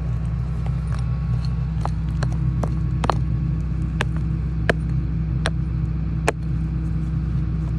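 Excavator's diesel engine running steadily, with a rock pick striking and scraping chalky rock: sharp, irregular clicks and small stones clattering, roughly one every half second to a second.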